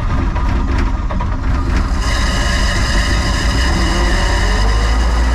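A loader's diesel engine, on jumper cables from a dead battery, cranking in rapid even pulses, then catching about two seconds in and running, its speed rising toward the end. A hard cold start.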